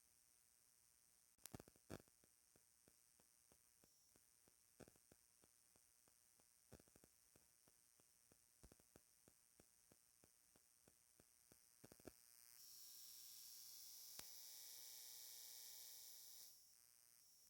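Near silence: a faint hum from the recording, with scattered faint clicks about two a second for most of the stretch, and a steady hiss for the last few seconds.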